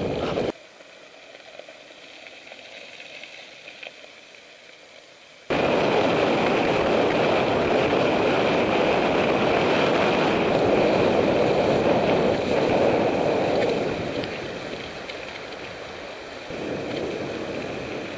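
Mountain-bike ride heard through a helmet camera: a steady rush of wind on the microphone and tyres rolling over gravel. It drops to a quieter rush about half a second in, jumps back loud at about five seconds in, eases off after about fourteen seconds and picks up again near the end.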